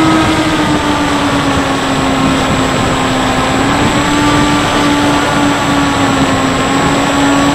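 Bixler 3 RC plane's electric motor and pusher propeller running with a steady whine over heavy wind rush. The pitch sinks slowly as the throttle is eased back, then rises again a little before four seconds in as throttle is added, with the plane low over the grass on approach.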